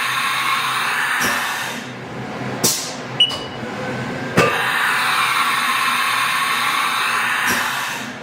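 Haas TM-1P CNC toolroom mill running a tool change: two stretches of steady air hiss with sharp clunks between them, and a short beep about three seconds in.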